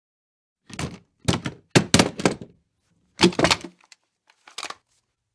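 Gun sound effect: a run of short, sharp clacks and knocks in quick clusters over about four seconds, loudest about two and three seconds in, with no long echo after each.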